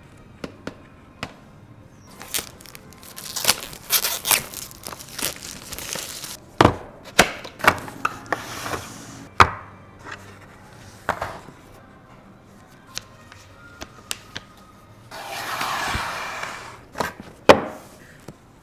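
Unboxing handling sounds of a travel charger and its packaging: scattered sharp clicks, taps and knocks, and stretches of crinkling and rustling, the longest near the end. Faint background music runs underneath.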